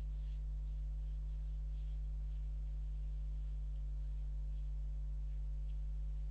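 Steady low electrical hum with no speech over it, unchanging throughout.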